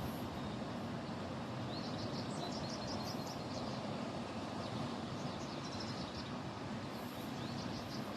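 Waterfall's steady rushing water, with a bird's quick high chirps over it from about two seconds in and again near the end.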